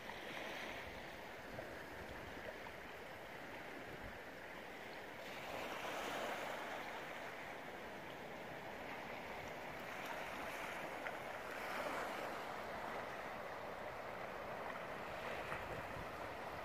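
Small waves washing on a shingle-and-mud estuary shore, a steady hiss that swells and fades every few seconds.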